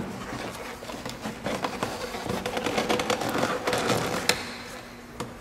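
Scattered clicks, knocks and rustles of hands handling and working a part into place among hoses and components in a truck's engine bay. The clatter thins out after about four seconds.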